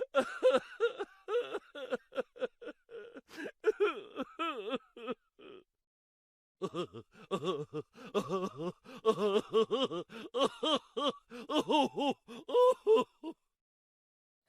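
High-pitched voice chattering in rapid, short, rising-and-falling syllables with no recognisable words, pausing for about a second partway through.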